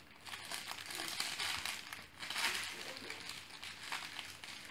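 Blankets rustling and crinkling under five-week-old puppies wrestling on them, in irregular scuffles that are loudest about a second in and again past the two-second mark.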